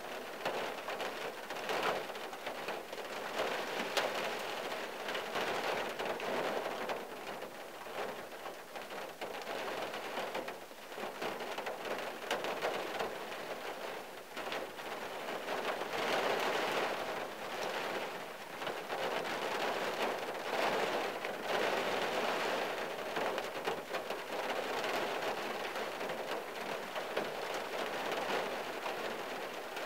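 Steady rain falling on a 1974 Valiant's windshield and body, heard from inside the car's cabin. The rain comes down heavier for a while in the second half.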